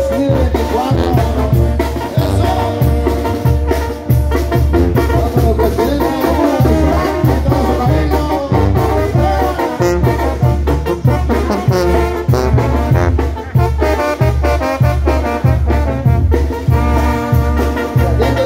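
A Mexican brass band (banda) playing live: horns carry the melody over a steady low beat, with timbales and percussion.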